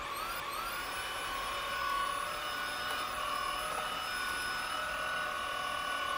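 Tineco A10 Hero cordless stick vacuum switched on: its motor whines up to speed within the first half second, then runs at a steady high whine as the floor brush is pushed over carpet.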